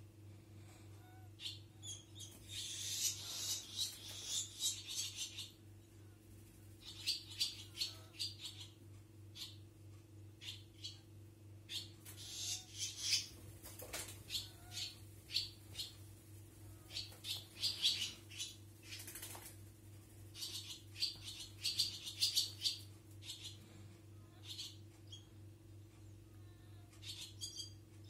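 Swallows twittering in repeated bouts of rapid, high chirps, each bout lasting a second or more, over a steady low electrical hum.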